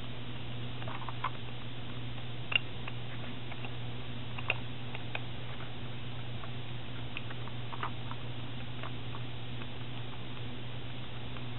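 Hand screwdriver turning a small screw into a metal strip on a folded bellows, giving scattered light clicks and scrapes, the sharpest about two and a half seconds in. A steady low hum runs underneath.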